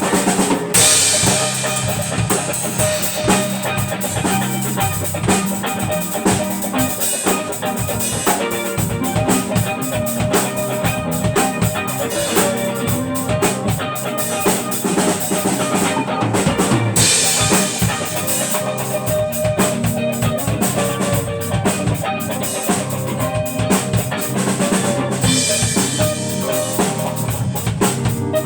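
Instrumental stretch of a song with no vocals: a drum kit keeps a steady beat, bass drum and snare, under sustained pitched instruments.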